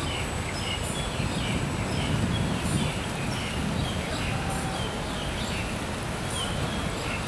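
Outdoor ambience: a steady low rumble with small birds chirping short, falling notes about twice a second.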